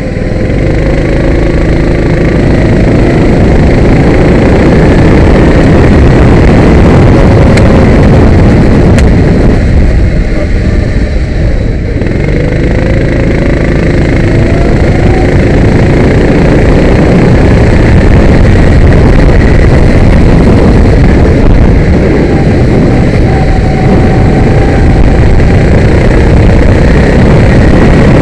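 A kart engine running hard, heard close up from on board with heavy rumble on the microphone. About ten seconds in the engine note drops away briefly, then climbs again as the kart accelerates.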